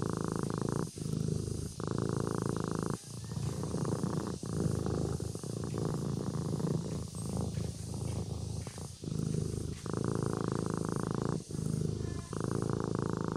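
Kitten purring in long runs broken by brief pauses every second or two.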